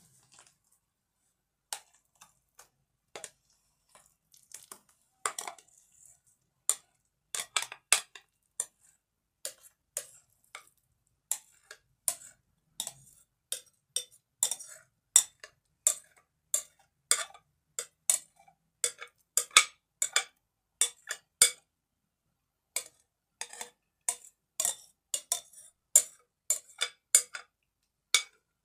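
Sharp clicks and scrapes of a utensil against a glass bowl as mashed potato is scraped out into a glass dish. They come sparsely at first, then about one or two a second.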